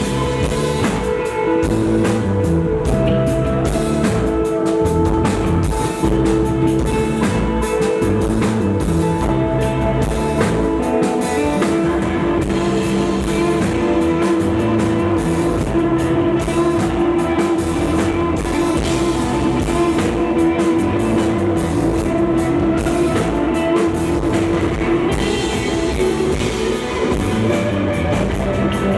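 Live rock band playing, with sustained electric guitar notes over a drum kit.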